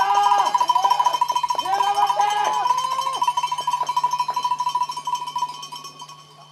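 Spectators' cowbells ringing rapidly and continuously beside a cyclocross course, with voices shouting encouragement over them. The bell ringing fades out near the end.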